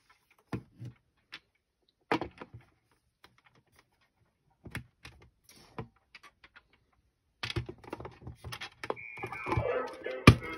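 Hard plastic Cranium Hullabaloo game unit being handled and turned over: scattered clicks and knocks, then a busier clatter of handling. About nine seconds in, the unit's electronic music starts up.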